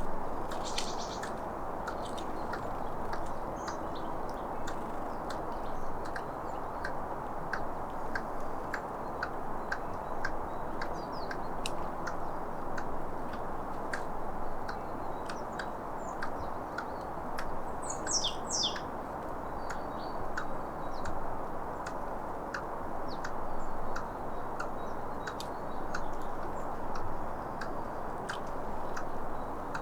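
A squirrel clicking over and over in a steady, even run of short sharp clicks, about one to two a second.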